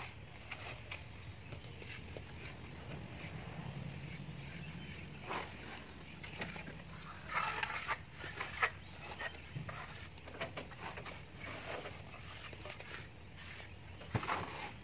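Steel trowels scraping and knocking as cement plaster is scooped from a bucket and worked onto a brick wall, in scattered short strokes with a sharper cluster around the middle and another near the end.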